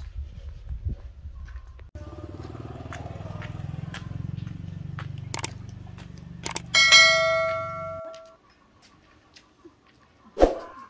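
A metal object struck with a loud clang that rings for about a second, among scattered lighter knocks and clicks over a low rumble that stops suddenly. One more sharp knock comes near the end.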